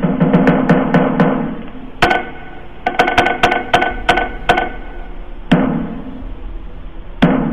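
A mosque beduk drum being beaten: a fast run of strikes, a short pause, a second run with a higher ringing tone through it, then single strikes spaced well over a second apart. It is the beduk call that announces the noon (luhur) prayer time.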